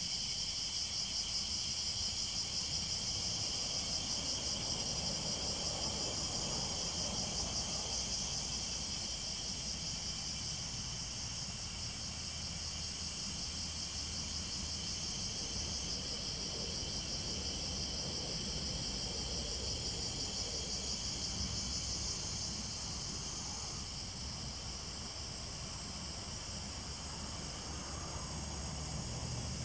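A steady chorus of insects shrilling, one continuous high-pitched drone with a fine pulsing texture, over a low rumble.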